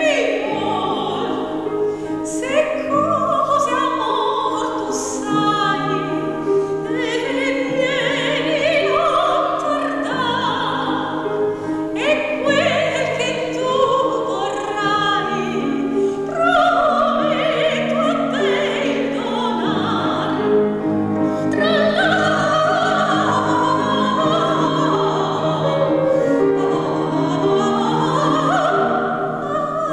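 Operatic soprano singing coloratura variations with quick runs up and down, accompanied by a grand piano.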